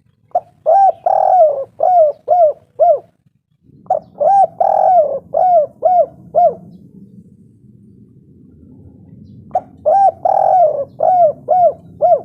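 Spotted dove (tekukur) cooing: three phrases of about six coos each, every phrase with one longer, drawn-out note near its start. A faint low hum sits underneath from about four seconds in.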